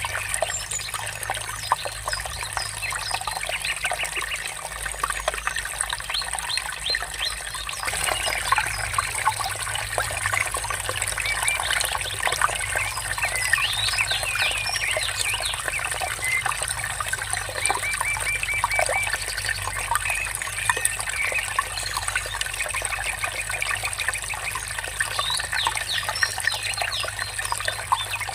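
Water murmuring steadily, with many birds chirping and calling over it, including a quick run of repeated notes around the middle.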